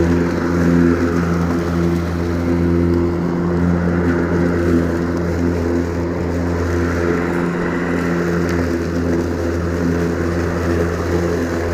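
Ryobi 40-volt cordless 20-inch lawn mower running: a steady electric motor hum and blade whir with the whoosh of the spinning blade, rising and falling slightly as it cuts grass.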